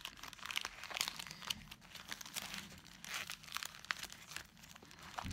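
Stack of paper sticker sheets and plastic sleeves rustling and crinkling as they are flipped through by hand, with irregular crackles.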